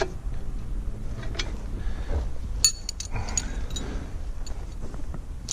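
Metal parts being handled: a few sharp metallic clinks with a brief ring, about two and a half to three and a half seconds in, over a low steady rumble.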